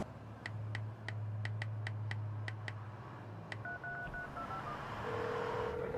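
Phone being dialled: about ten quick keypad taps at roughly four a second under a low hum. A few short beeps follow near the four-second mark, then a steady dialling or ringing tone starts about five seconds in as the call goes through.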